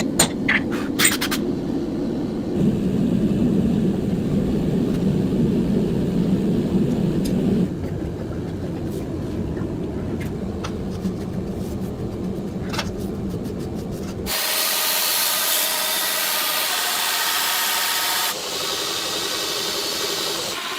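Workshop power-tool noise in several abruptly cut segments: a low machine rumble with scattered clicks, then, from about two-thirds of the way in, a hissing, rasping grinding sound.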